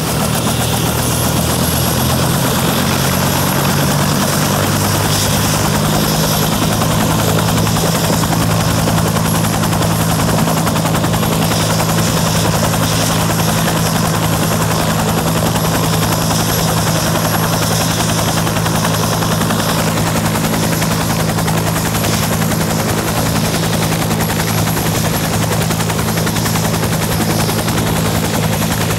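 Bell UH-1 'Huey' helicopter running on the ground, its turbine engine and two-blade main rotor going steadily and loud. The engine tone rises slightly in the first few seconds, then holds. A high whine drops out about two-thirds of the way through.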